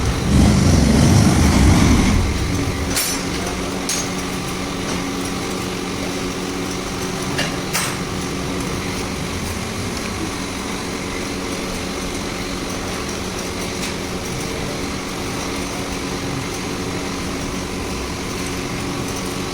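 A low rumble that is louder for the first two seconds, then a steady mechanical hum with a few sharp clicks.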